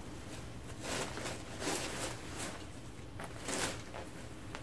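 Soft rustling and swishing of layered tulle ball gowns as they are lifted, set down and handled, a few separate rustles spread through the stretch.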